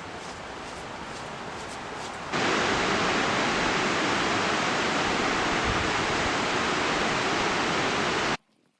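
Steady, loud rushing of fast-flowing water, starting abruptly a couple of seconds in over a quieter outdoor background and cutting off suddenly near the end.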